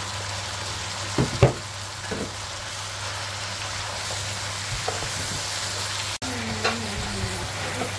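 Beef and vegetable stir-fry sizzling steadily in a pan as it is stirred with a wooden spatula, with two sharp knocks a little over a second in. The sound cuts out for an instant about six seconds in.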